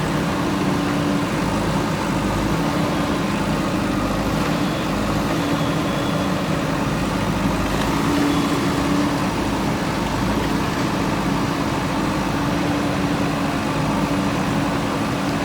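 JCB backhoe loader's engine running steadily at a constant pitch while the machine works in the mud.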